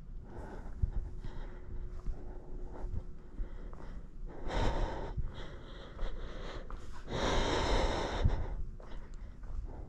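A person breathing heavily close to the microphone: two long, noisy breaths about four and seven seconds in, the second the louder, among small knocks and handling noises.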